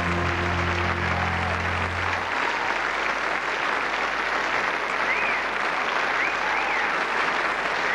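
A large audience applauding steadily, with the held low notes of the stage band's music ending about two seconds in.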